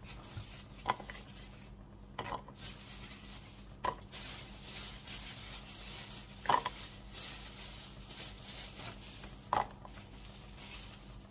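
A thin plastic bag crinkles as okra pods are pulled out of it, with about five light knocks as the pods are set into a plastic bowl. The loudest knock comes about six and a half seconds in.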